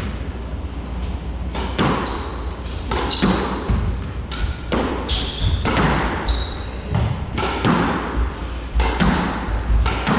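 Squash rally: the ball cracking off rackets and the walls about once a second, starting about two seconds in, with short shoe squeaks on the hardwood court floor between strokes.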